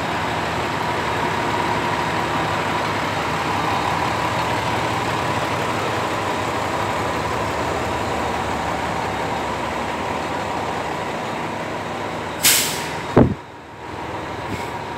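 Fire engine's diesel engine idling with a steady rumble and hum. Near the end comes a short burst of hissing air, then a sharp thump.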